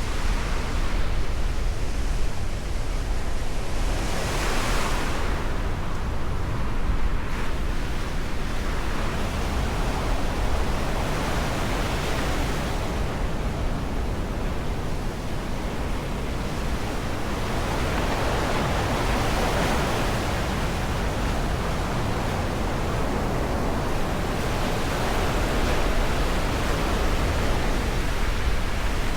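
Black Sea surf washing in, a steady rush of noise that swells every few seconds as waves break, with wind rumbling on the microphone.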